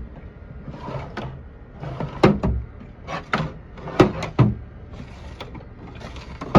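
Drawers of a restored vintage steel toolbox being slid open and shut, a scraping metal slide each time and several sharp metal clacks as they stop.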